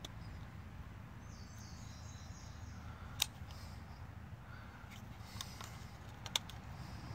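Small sharp plastic clicks as a plastic trim tool pries at the knob of a power seat switch, the loudest about three seconds in and another near the end, over a faint steady low hum.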